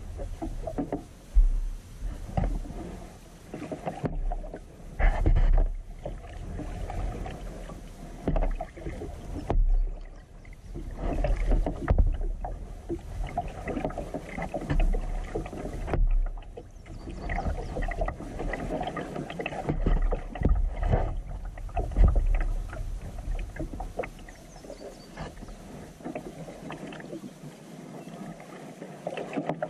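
Kayak paddling on calm water: the paddle blades dip and pull through the water with splashes and drips, swelling and fading in an unhurried rhythm of roughly one stroke every second or two.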